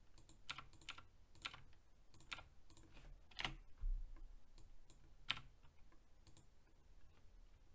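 Faint computer keyboard typing: irregular key clicks, with a handful of louder keystrokes scattered among them.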